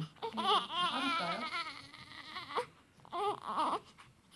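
Baby crying in short, wavering wails: one bout in the first second and a half, and a shorter one about three seconds in.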